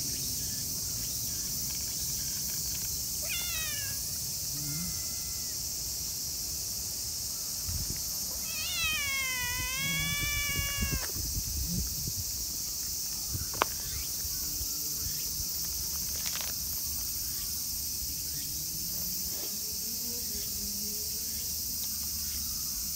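A colourpoint stray cat meowing: a short call about three seconds in, then a long drawn-out meow that falls in pitch and holds, about nine seconds in. A steady high drone of insects runs underneath, and a single sharp click comes about halfway through.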